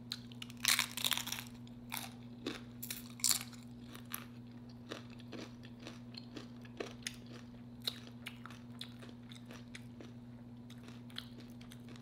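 Close-up chewing of crunchy homemade nacho chips. Several loud crunches come in the first few seconds, then softer, scattered chewing clicks.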